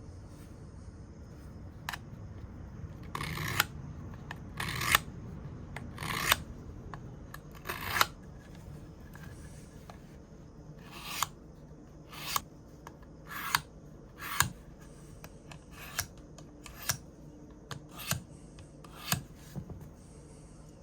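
Knife blade being sharpened: a series of short hissing strokes of steel across a sharpener, roughly one a second with a brief pause midway, putting a fresh edge on a vintage Queen whittler pocket knife blade.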